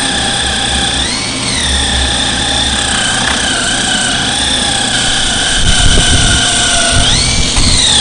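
Handheld air die grinder with a rotary cutter running against tire rubber, preparing a crater injury in an OTR tire for vulcanizing repair. Its steady high whine rises briefly in pitch twice, and a rough low grinding rumble joins in over the second half.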